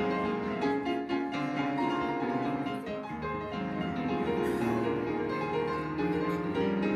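Background instrumental music led by piano, with a steady flowing run of notes.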